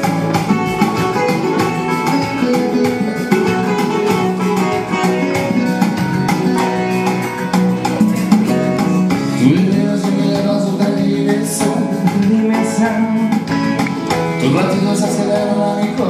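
Latin pop music played live on an electronic keyboard, over a steady beat, in an instrumental passage between sung lines.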